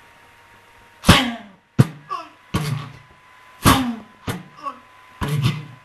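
Vocal imitation of arrows: about six sharp whooshing, thwacking bursts made with the mouth, several trailing into short falling pitched sounds, imitating an arrow shot at a beast.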